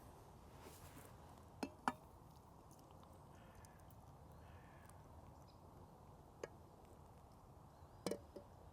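Near silence with a few sharp clicks or taps: two about a second and a half in, one in the middle, and a cluster near the end.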